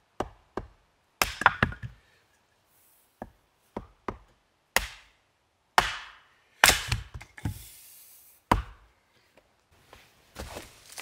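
Hatchet splitting kindling from a log section set on a chopping block: a dozen or so sharp wooden knocks, irregularly spaced. Softer rustling near the end.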